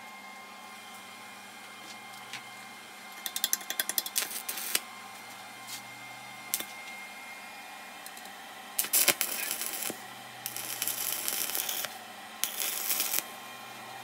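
Stick welder's arc striking on steel: three short bursts of crackling, hissing arc, the first opening with sharp spits, as a square steel tube is tack-welded onto a steel tank. Before them comes a quick run of metal clicks and taps. A steady hum runs underneath.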